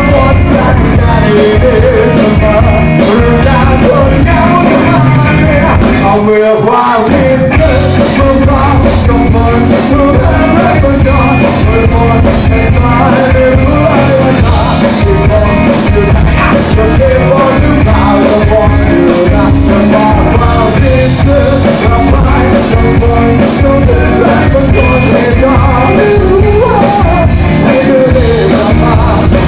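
Live rock band playing loud: a singer over electric guitars, bass and drums. The drums and bass drop out briefly about six seconds in, then the full band comes back in.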